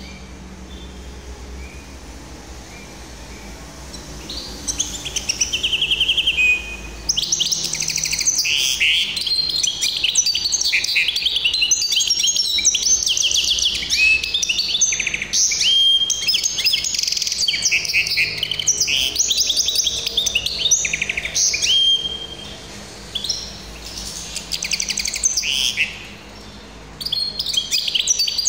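Caged hybrid finch singing a long song of fast trills and sharp chirps, starting about four seconds in, with a couple of short pauses near the end.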